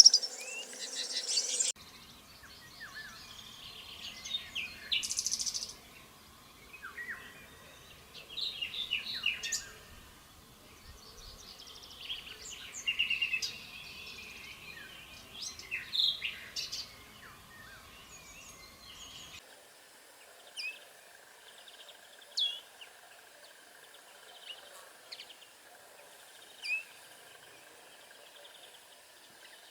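Wild birds singing and calling in short chirps and trills, with sharp, high single chip notes in the latter part. The background changes abruptly twice, about 2 and 19 seconds in.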